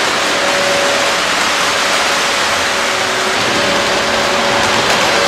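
Lionel O gauge model train running on its track: a steady whirring rush of wheels and motor, with a faint steady hum.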